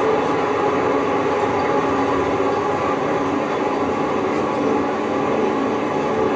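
Steady, dense noise from a film's soundtrack played through cinema speakers and picked up by a phone in the audience.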